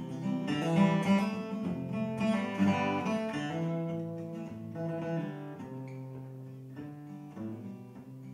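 Acoustic guitar strummed, with hard strums in the first three seconds or so that then ease into quieter playing.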